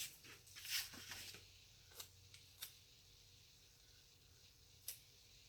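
Faint paper handling: soft rustles and a few light clicks as stickers and planner pages are moved, most of them in the first second and a half, then scattered ones about two seconds in and near the end.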